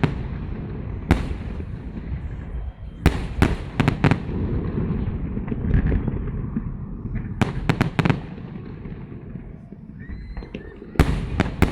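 Fireworks salute going off: sharp bangs in clusters, one about a second in, several around three to four seconds, more near eight seconds and a group near the end, over a continuous low rumble.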